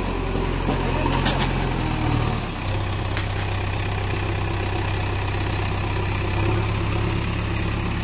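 JCB backhoe loader's diesel engine idling steadily, its note changing slightly about two and a half seconds in. A short click about a second in.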